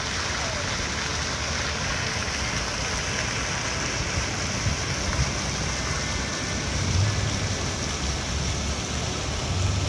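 Plaza fountain's water jets splashing steadily into the basin, with a low rumble underneath.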